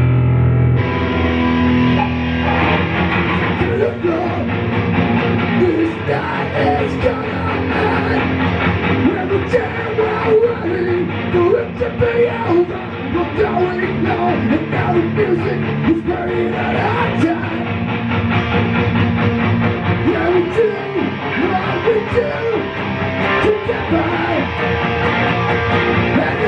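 Rock music with electric guitar and a voice singing, changing abruptly about a second in.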